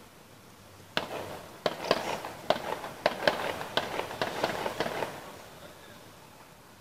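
Celebratory gunfire: about a dozen gunshots in quick, irregular succession over about four seconds, each crack echoing off the surrounding buildings.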